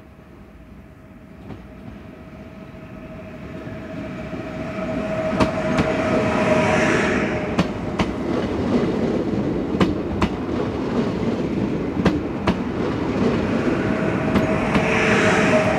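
Pesa Elf EN76 electric multiple unit approaching and passing close by, growing louder over the first five seconds. Its wheels click over rail joints in pairs about every two seconds over a steady running rumble.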